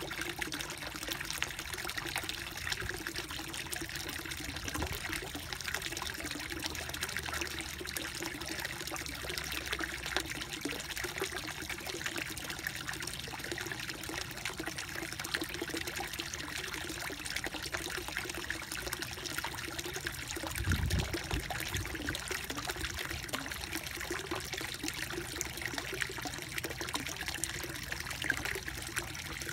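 Pond water steadily trickling and bubbling around a submerged pipe outlet in a small koi pond. A brief low thump comes about two-thirds of the way through.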